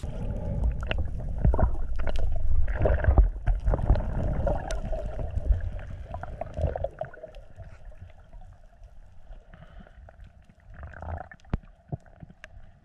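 Underwater sound through a camera held underwater while swimming: a loud low rumble and gurgle of water moving over the microphone for the first six or seven seconds, then quieter, with scattered sharp clicks.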